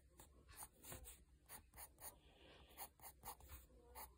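Faint scratching of a pencil sketching on lined notebook paper: a quick, irregular series of short strokes.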